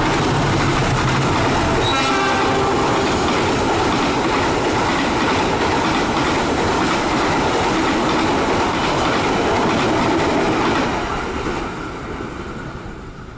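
CC 206 diesel-electric locomotive and its string of passenger coaches passing close by, a loud steady rumble of engine and wheels on the rails. The sound fades away from about eleven seconds in as the last coach goes by.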